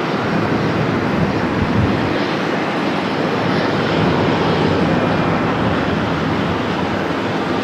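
Airbus A320's jet engines running as the airliner moves along the runway: a loud, steady rushing noise, swelling slightly in the first couple of seconds.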